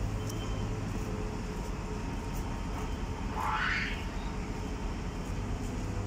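Diesel engines of excavators and a dump truck running steadily, a low rumble with a hum, and one brief rising whine about three and a half seconds in.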